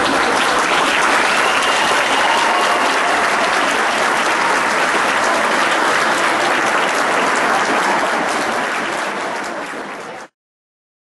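Audience applauding, a dense steady clapping that tapers off and then cuts off abruptly near the end.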